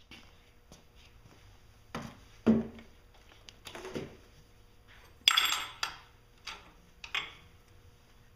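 Small metal fittings and hand tools clinking and knocking while fittings and plugs are taken off a marine engine's exhaust manifold: a handful of separate taps and clatters, one dull thump, and the loudest a ringing metallic clatter a little past halfway.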